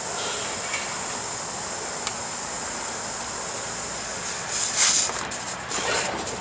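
Air hissing steadily out of the punctured tire through the open nail hole. About four seconds in, a louder, uneven scraping noise with a few knocks comes in for the rest.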